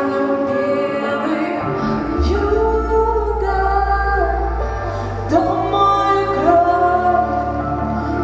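A pop song with a female voice singing long held notes over a synthesizer-and-bass backing.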